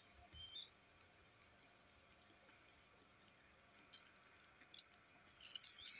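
Near silence: room tone with faint scattered clicks, a few just after the start and more of them near the end.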